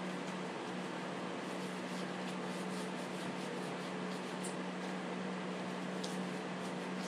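Faint scraping and ticking of a small screwdriver working fuel-softened, gummed-up residue off the housing of a Stihl MS 250 chainsaw, over a steady low hum.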